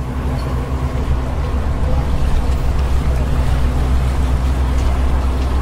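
Ship sound effect: a steady low engine rumble with a hiss of water, building up over about the first second and then holding steady.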